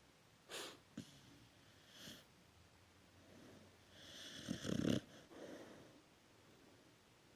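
Sleeping dog snoring: a brief wheezy breath about half a second in, then one loud snore that builds for about a second and stops abruptly, followed by a softer exhale.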